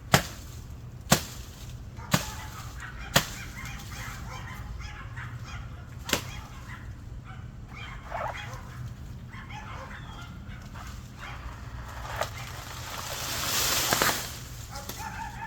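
Chopping blows into a banana tree's trunk: four sharp strikes about a second apart, then two more spaced further apart. Near the end a rush of noise swells up and stops abruptly.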